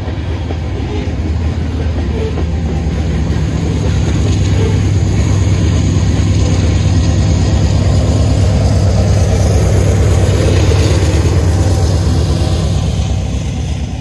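Freight train of loaded covered hopper cars rolling past at speed: a steady rumble of steel wheels on the rail, growing a little louder partway through.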